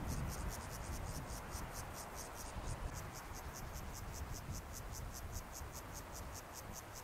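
Insects chirping high-pitched in fast regular pulses, about five a second, over a low steady rumble.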